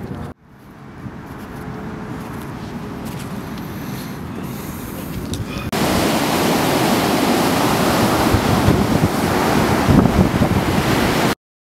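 Ocean surf breaking, with wind on the microphone. It builds gradually, jumps much louder about halfway through as heavy waves break close by, and cuts off abruptly just before the end.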